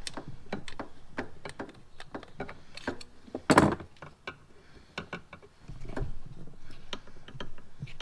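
Hand tools and metal parts clicking and knocking as a carburetor is worked loose from an ATV engine, with one loud clatter about three and a half seconds in.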